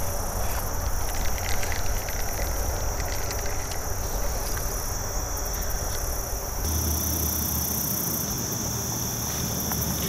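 Steady high-pitched chorus of insects such as crickets, with a low rumble on the microphone underneath that changes about two-thirds of the way in.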